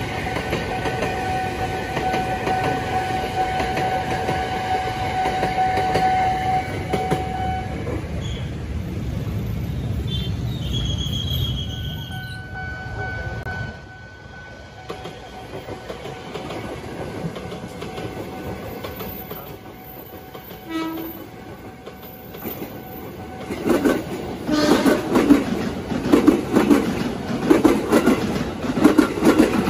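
Electric commuter trains passing on the line. First a Tokyo Metro 6000-series set runs by with a steady high tone, and a short horn blast sounds about 11 seconds in. Then a JR 205-series set comes by close, with loud rhythmic wheel clatter from about 24 seconds in.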